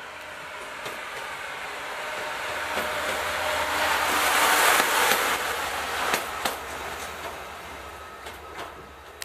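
Direct Rail Services Class 68 diesel locomotive running light engine past at speed: its engine and wheel noise build up as it nears, are loudest about halfway through as it passes close, then fade away. A few sharp clicks come near and just after the loudest point.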